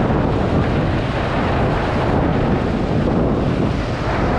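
Wind buffeting a GoPro's microphone: a steady, loud rumble and hiss.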